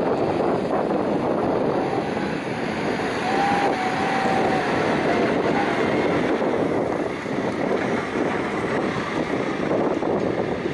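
Terex TLB890 backhoe loader's diesel engine running steadily under work, with a short faint whining tone about three and a half seconds in.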